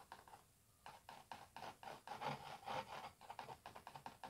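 Palette knife rubbing and scraping oil paint onto a canvas: a quick run of faint, short strokes starting about a second in.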